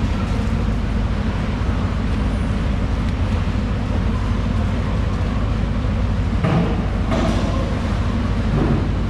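A steady low machinery rumble, with a couple of brief louder noises about six and a half to seven seconds in.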